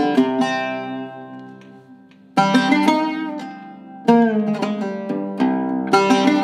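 Seven-course Iraqi-style oud with a cedar top and mahogany bowl, played solo. Strong plucked strokes are left to ring and die away, about two and a half and four seconds in, with quicker runs of notes at the start and near the end.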